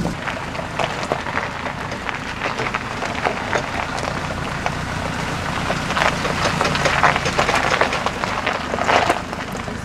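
Land Rover Defender 110 rolling over a gravel track, stones crunching under the front tyre, with irregular sharper knocks about every second or two: the weird clunking noise the Defender makes when the wheels are turned, its cause not yet found.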